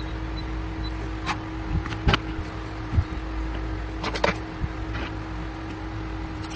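Steady electrical hum with a few sharp clicks, about a second apart in the first three seconds, as a handheld battery spot welder's copper pen electrodes are pressed onto nickel strip on 18650 lithium-ion cells. A quick cluster of light knocks follows about four seconds in as the cells are handled.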